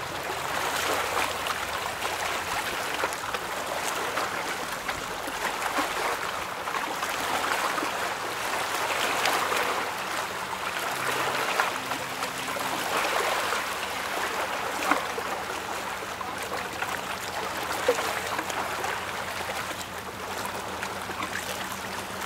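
River water lapping and splashing in a steady, uneven rush, with a few small sharp splashes. A faint steady low hum comes in about halfway through.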